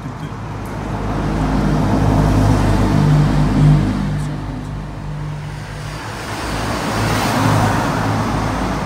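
Road traffic passing under a bridge: one vehicle's engine and tyre noise swells to a peak and fades, then a second vehicle swells by near the end.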